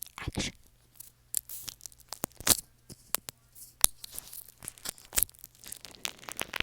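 Slime being handled, giving irregular sharp crackles and sticky pops that grow denser near the end.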